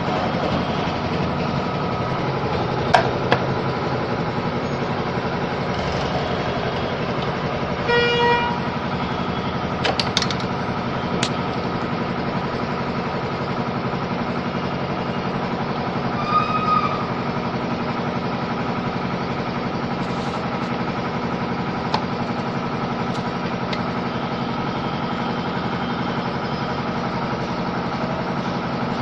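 A steady mechanical hum. A short horn-like honk sounds about eight seconds in, a brief chirp comes near the middle, and a few sharp clicks occur.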